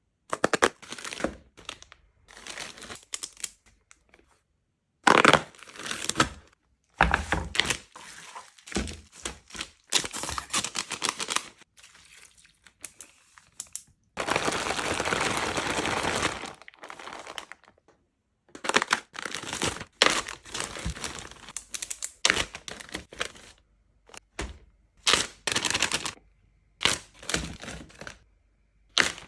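Plastic packaging crinkling and rustling, with sharp clicks and knocks of plastic containers being handled and set down while food is unpacked and arranged in a refrigerator. The sounds come in short separate bursts with brief gaps, and a longer steady crinkling stretch around the middle.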